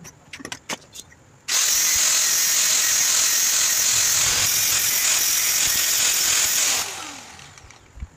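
Electric angle grinder with a green disc grinding the end of a metal rod: a few light knocks as the tool is picked up, then about five seconds of steady, high-pitched grinding, ending in a falling whine as the motor is switched off and spins down.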